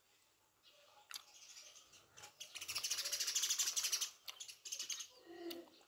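Bird chirping: a rapid run of high, closely spaced notes that starts about two and a half seconds in and lasts about a second and a half.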